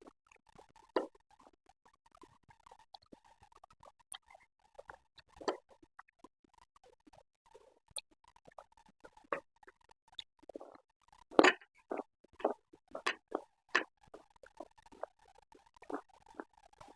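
Scattered short wet clicks and smacks of someone chewing and eating momos. A denser run of louder ones comes about eleven to fourteen seconds in.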